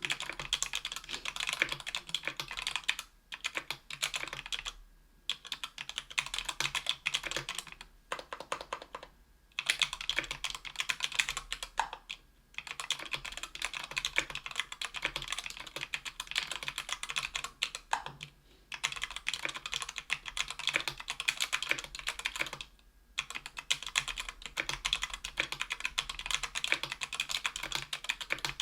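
Mechanical keyboard typing on stock, unlubed JWK Rara Tactile 62g switches in a Tofu 60% aluminum case with an aluminum plate: fast runs of key clicks broken by short pauses every few seconds.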